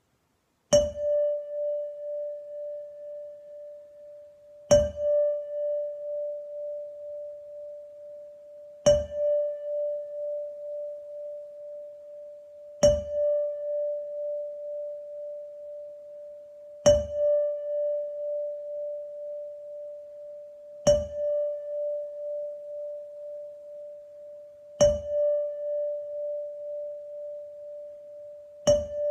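Weighted tuning fork struck about every four seconds, eight times: each strike is a sharp tap followed by one clear, steady tone that rings on, wavering gently in loudness, until the next strike.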